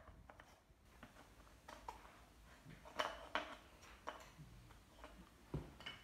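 Light knocks and clicks of wooden puzzle pieces being handled and fitted into a wooden puzzle board, a few scattered taps with the loudest about halfway through.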